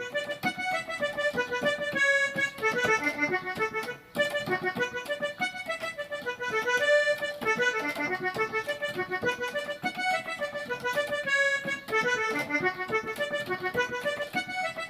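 Electronic keyboard playing a fast forró solo melody in an accordion-like voice, a quick run of short notes with a brief break about four seconds in.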